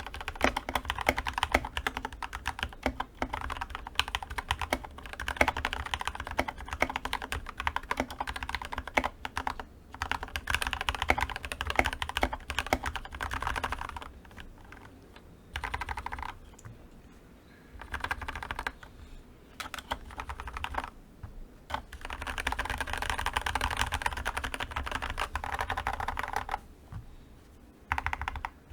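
Typing on a GK61XS mechanical keyboard with lubed and filmed Gateron Milky Yellow linear switches under PBT keycaps: a fast, dense run of keystrokes that slows to scattered presses with short pauses about halfway through, then picks up again before a brief pause near the end.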